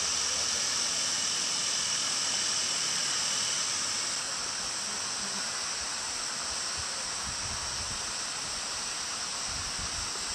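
Steady, even high hiss of outdoor bush ambience that shifts slightly about four seconds in, with some low wind rumble on the microphone near the end.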